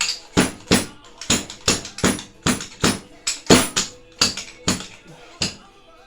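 Rhythmic sharp tapping, about three strikes a second, that stops about five and a half seconds in.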